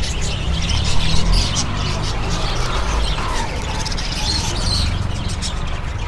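A flock of caged budgerigars chirping, many short calls overlapping, over a steady low rumble.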